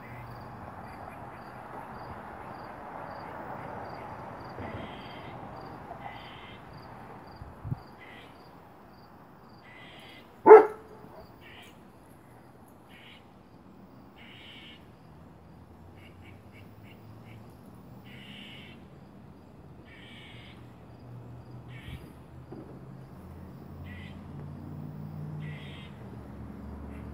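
A squirrel barking its alarm call over and over, short harsh chirps roughly once a second. About ten seconds in, a dog gives one loud bark.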